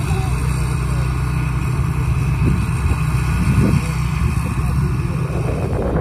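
Tracked rice combine harvester running steadily while it cuts, a low engine drone. A broader rushing noise rises near the end.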